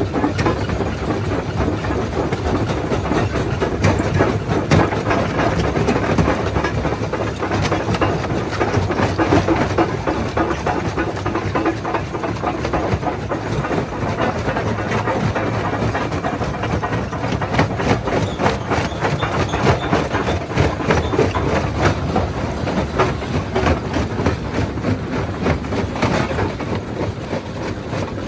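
Primary jaw crusher crushing rock: a steady low rumble with rapid, irregular knocks and clatter of stone breaking and shifting in the jaws.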